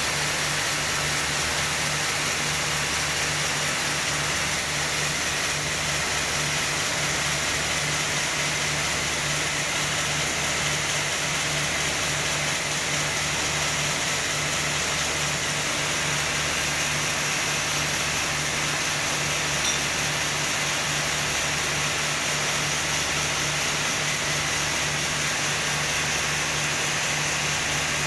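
Sawmill machinery running steadily: a constant machine hum with a slow, low throb and a wash of noise, unchanged throughout.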